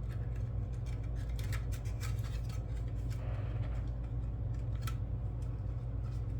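Small plastic model-kit parts being handled and pressed together, giving scattered light clicks and taps with a brief soft rustle about halfway through, over a steady low hum.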